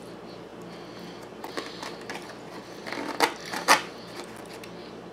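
Eating pecan pie with a fork: light clicks and scrapes of the fork against the takeout box, with two louder clicks about three seconds in.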